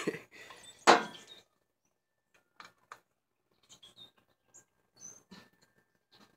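Scattered small clicks and taps of a screwdriver and the angle grinder's housing being handled while a screw is worked out, with one louder knock about a second in. A few faint bird chirps sound around the middle.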